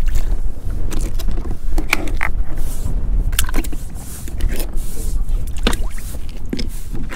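Scallop shells clacking and knocking on a wooden deck as they are picked up and sorted, several short sharp clicks spread through, over a steady low rumble.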